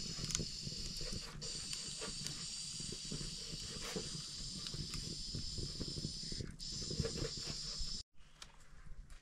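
Pressure cooker on a wood fire hissing steam steadily, dipping briefly twice, with the fire crackling and ticking underneath. The hiss cuts off abruptly near the end, leaving quieter scattered ticks.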